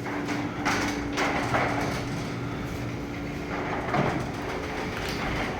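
LiftMaster belt-drive garage door opener running the door down with a steady, quiet hum over rolling noise. About four seconds in the hum stops and there is a thump.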